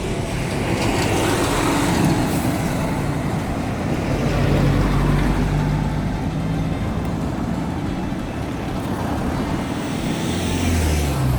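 Road traffic: motor vehicles passing close by, a continuous noise of engines and tyres that swells about five seconds in and again near the end.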